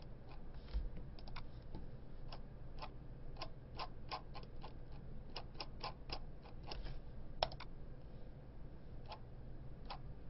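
Irregular clicking and tapping of a computer keyboard and mouse being worked. The clicks come in scattered runs with short pauses, over a low steady hum.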